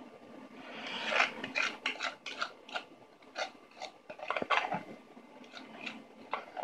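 Metal spoon scraping and clinking against a glass mixing bowl as thick cake batter is scraped out, in a run of irregular short clinks and scrapes.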